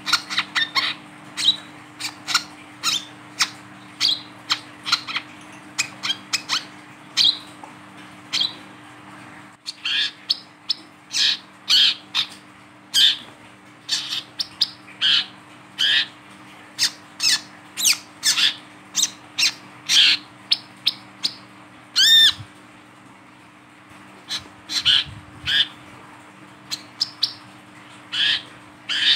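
Male brown-throated sunbird (kolibri kelapa) calling while held on a hand: short, sharp chirps repeated about one or two a second with brief pauses, and one louder, fuller call about two-thirds of the way through.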